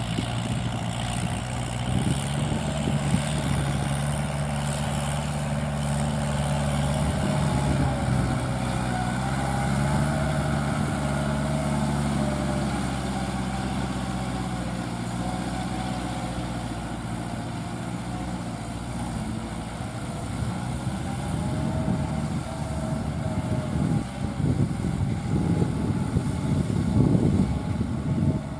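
Kubota L5018VN tractor's four-cylinder, 50 hp diesel engine working steadily under load while it drives a rear rotary tiller through dry field, with a wavering higher tone over the engine drone. The sound grows rougher and more uneven in loudness over the last few seconds.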